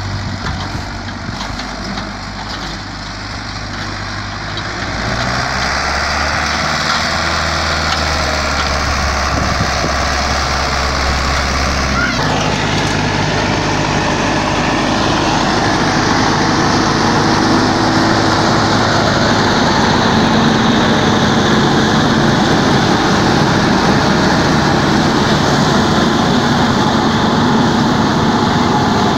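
Tractor diesel engine running steadily. About twelve seconds in, the sound changes to a Zetor tractor pulling a forage harvester through grass, chopping it and blowing it into a trailer: a dense, steady machine noise.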